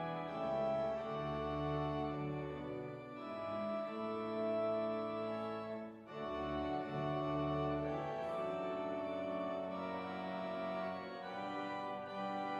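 Church organ playing slow, sustained chords that change every second or two, with a brief break in the sound about six seconds in.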